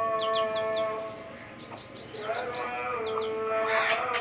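Young chicks peeping: runs of short, high, falling peeps several a second. Steady held tones sound underneath, and there is a brief harsh burst near the end.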